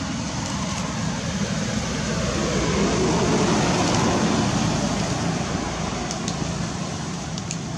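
Steady rushing outdoor noise that swells about three seconds in and then eases off again.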